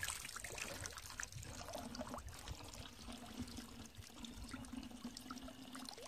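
Faint, steady trickle of running water.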